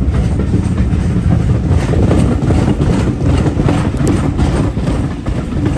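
Steady, loud rumble and rattle of a steam-hauled railway coach running along the track, heard from inside the carriage.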